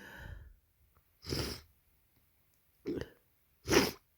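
A person with a heavy head cold making a short voiced catch of breath, then sniffling three times in short, sharp sniffs, the last the loudest.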